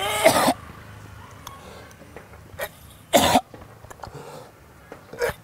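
A man gagging and coughing in short, loud bursts: one right at the start, another about three seconds in and a smaller one near the end. He is retching, nauseated by a foul cooking smell.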